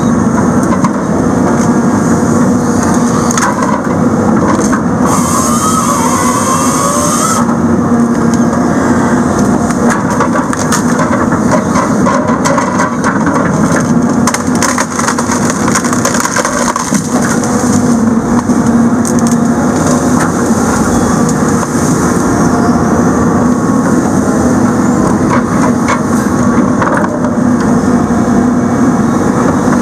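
Heavy machine's diesel engine and hydraulics running steadily as a Rotobec grapple saw grips and drags trees and brush, with repeated cracking and snapping of branches. A brief higher hiss comes about five seconds in.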